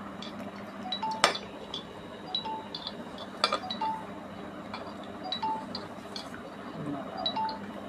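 Light metallic clinks and taps on a stainless steel pot as a hand squeezes soaked jujubes in water inside it; the sharpest clink comes a little over a second in, another about three and a half seconds in.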